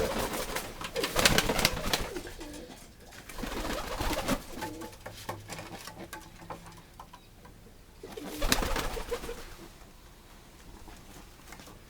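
Domestic pigeons cooing, with a few louder noisy bursts about a second in, around four seconds and near eight and a half seconds.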